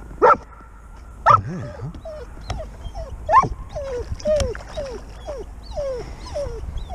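Dog giving three sharp yelps, then whining in a quick run of short, high, falling whimpers, about two a second. It is excited by a hooked pike thrashing at the surface just ahead of the kayak.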